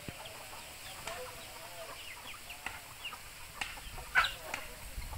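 A flock of young chickens clucking and chirping in short, scattered calls while feeding, with one louder call a little after four seconds in.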